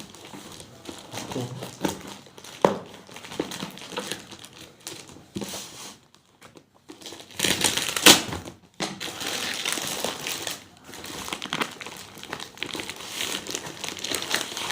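Packaging being handled during an unboxing, crinkling and rustling irregularly, with a short pause about six seconds in and one loud crackle about eight seconds in.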